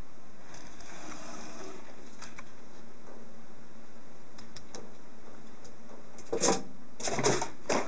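Light hiss with a few scattered sharp clicks, then a cluster of louder knocks and rustles in the last second and a half.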